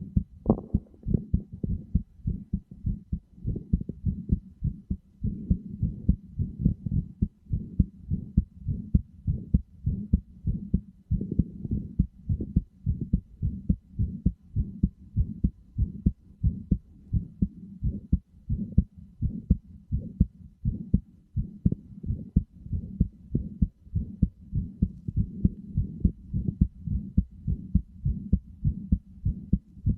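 Recorded human heartbeat: a steady, even rhythm of low, dull lub-dub thumps that continues unchanged.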